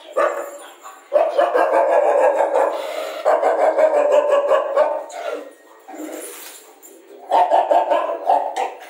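Rajapalayam hound barking in two long, rapid runs: the first starts about a second in and lasts about four seconds, the second comes near the end.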